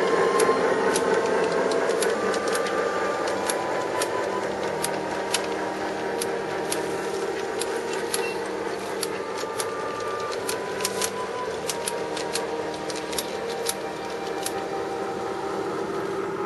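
G-scale model freight cars rolling past on garden railroad track, their wheels clicking sharply and irregularly over the rail joints, a few clicks a second, over a steady hum that slowly fades.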